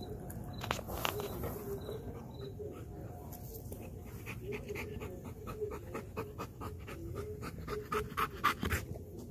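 Belgian Malinois panting hard and fast, several breaths a second, out of breath after a workout; the panting grows louder near the end.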